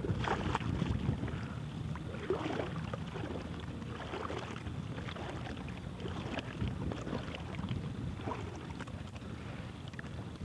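Wind rumbling on the microphone aboard a moving boat, with water slapping and splashing against the hull in short irregular bursts.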